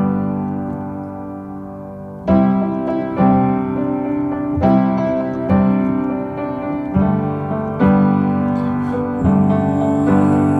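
Background music: a piano plays chords with no singing. After a sustained chord, a new chord is struck about every second from a couple of seconds in.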